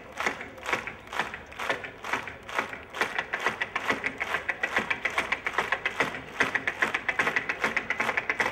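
Tap dancing: shoe taps struck on a stage floor, a few spaced strikes at first, then a fast, dense run of taps from about three seconds in.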